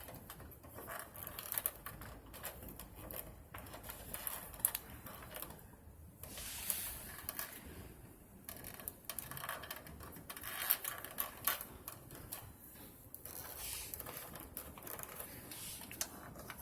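Hands routing and tidying a cable among plastic treadmill parts: irregular light clicks and rattles, with short pauses between them.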